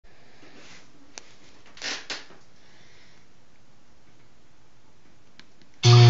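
Low hiss with one sharp click and two short rustles. Just before the end, loud guitar music played from an iPod starts abruptly.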